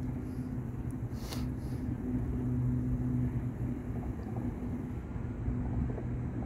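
Steady low hum of a boat motor over a rumble, with one short sharp click about a second and a half in.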